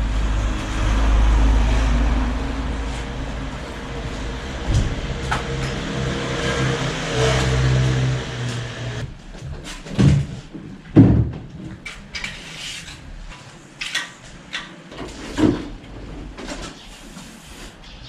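A vehicle engine running steadily with a low hum, stopping suddenly about halfway through. After that come several sharp knocks and thuds of a wooden cabinet being handled.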